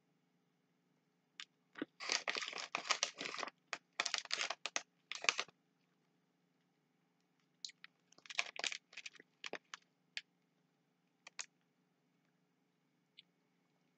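Skittles candy bag crinkling as a hand rummages in it, in two spells of rustling a few seconds apart with a few single crackles between.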